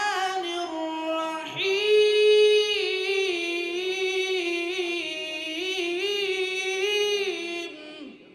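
A single reciter's voice chanting Quran in the melodic tajweed style, drawing out long held notes with ornamented turns in pitch. The voice stops near the end, leaving a short echo.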